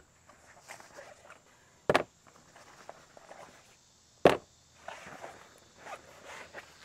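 Two sharp clacks, about two and a half seconds apart, as ladder parts are handled and set down on a cardboard box, with faint rustling of a fabric storage bag between them.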